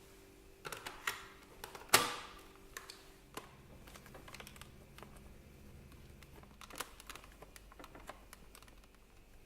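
Irregular clicks and knocks of hard plastic being handled on a Dyson V6 cordless vacuum during a battery swap, with one loud sharp snap about two seconds in.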